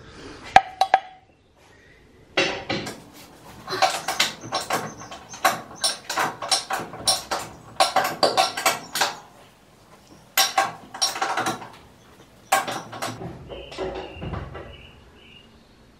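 Metal clanking and knocking, in irregular runs of sharp strikes with a short ring, as the levelling feet of a Harrison M300 lathe are adjusted.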